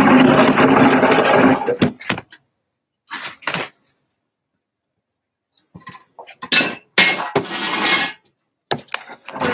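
Handling noise from a phone held against the body: fabric rubbing over the microphone and knocks, in several loud bursts, with the sound cutting out to silence in between.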